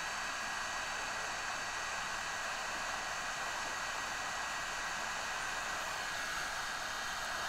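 Hot air rework station blowing a steady hiss of hot air onto a circuit board, reflowing solder paste on its pads, with a faint steady whine in the air flow.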